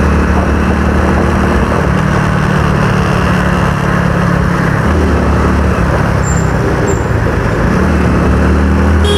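Motorcycle engine running steadily while riding, with wind noise on the microphone. The engine note shifts slightly about five seconds in and again near the end.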